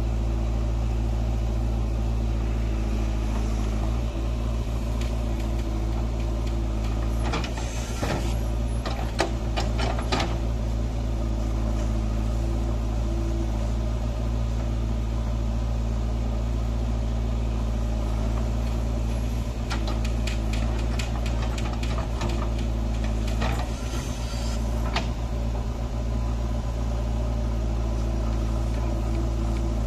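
JCB 3DX backhoe loader's diesel engine running steadily under digging work. There are two spells of clattering, about a quarter of the way in and again past the middle, as the bucket digs and moves soil and stones.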